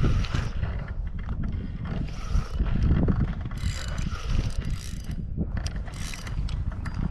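Fishing reel being cranked while a carp is played, its gears and handle clicking steadily. Two short hissing bursts come around the middle.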